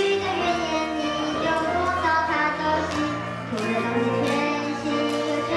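A young female voice singing a melody over a backing track with held bass notes.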